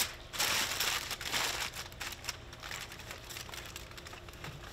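Aluminium foil crinkling and crackling as it is folded and crumpled into a packet around fish, loudest in the first second or so and then quieter.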